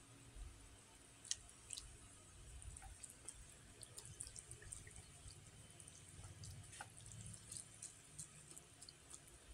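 Chopsticks stirring and lifting instant noodles in a bowl of broth, heard faintly as scattered small clicks and drips.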